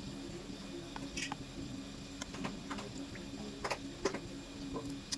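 A metal spoon stirring a seafood dipping sauce in a bowl, clicking lightly against the bowl about half a dozen times, over a steady low hum.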